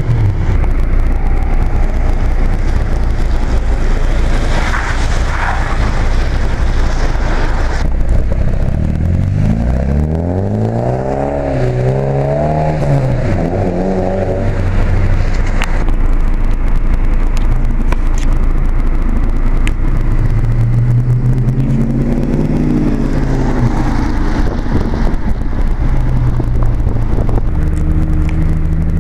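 Modified cars pulling away along a wet road, their engines revving up and easing off: once strongly about ten seconds in, again after about twenty seconds, and another starting near the end. Under them runs a steady hiss of tyres on the wet road and rain.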